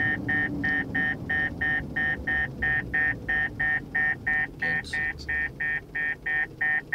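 Fast Driver F19 radar detector sounding its alarm, a steady run of rapid beeps at about three to four a second, over the low rumble of the car. It is warning of a speed camera's radar ahead.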